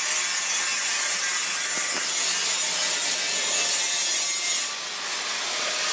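Grinder working on metal: a steady loud grinding hiss that drops to a lower level near the end.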